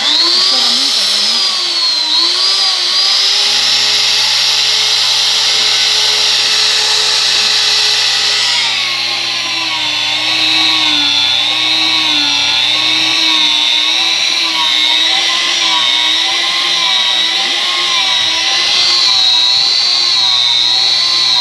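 Electric motor of an HDPE butt-fusion machine, most likely the facing tool planing the pipe ends, running continuously with a loud whine. The pitch wavers up and down as the pipe is pushed against it and drops slightly about nine seconds in.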